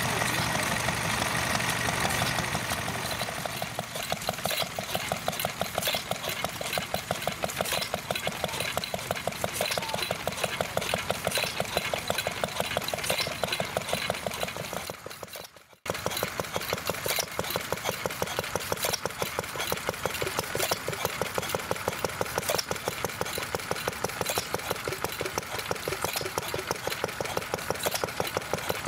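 Small vintage stationary engines running one after another. First a small twin-cylinder engine keeps up a fast, even beat. After a brief drop-out, a small open-flywheel engine runs with a steady train of sharp exhaust beats, about four a second.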